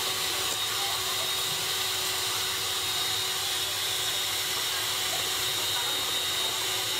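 Electric stand mixer running at speed, its wire balloon whisk beating egg whites into meringue in a stainless steel bowl: a steady motor whir with a faint high whine.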